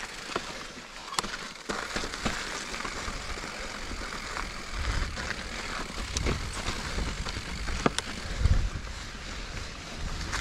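Full-suspension mountain bike, a Giant Reign 29 enduro bike, rolling along dirt and rock singletrack: a steady hiss of tyre noise and rattle, with occasional sharp clicks and knocks from the bike over bumps and a couple of low rumbles.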